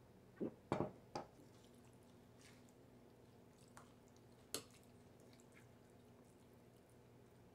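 Three quick sips or slurps of a drink from a mug, then a single sharp clink of a metal fork against a ceramic plate about four and a half seconds in.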